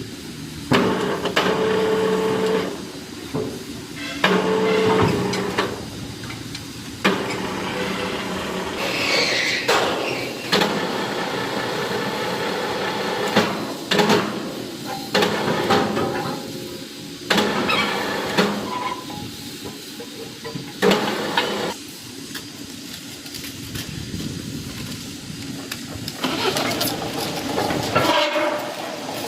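Wire-processing factory machinery running, the sound changing abruptly every few seconds between steady machine hums and clatter. A brief rising squeal comes about nine seconds in, with sharp knocks here and there.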